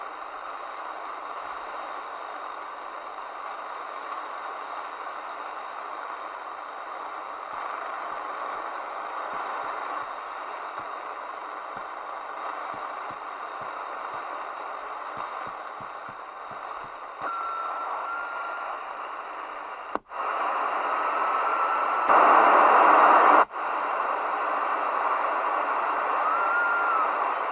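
CB radio receiver hissing with static on an open channel, with a few faint whistling tones. About two-thirds of the way in a sharp click is followed by louder hiss, and a short, louder burst of noise starts and cuts off abruptly soon after.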